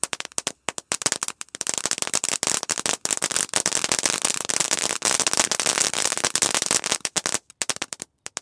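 Firework fountain crackling: a rapid stream of sharp crackles, scattered at first, thickening into a dense crackle for several seconds, then thinning to a few last cracks and stopping about eight seconds in.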